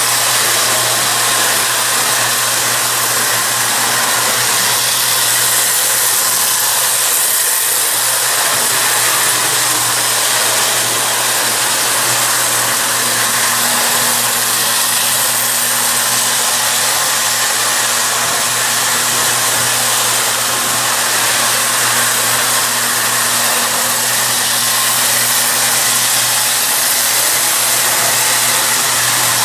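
Marx 333 die-cast toy steam locomotive and its lighted passenger cars running steadily around a loop of tinplate three-rail track. The electric motor whirs, the wheels run on the metal rails, and a steady low hum sits underneath.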